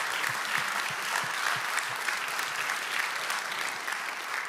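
A congregation applauding steadily, the clapping beginning to die away near the end.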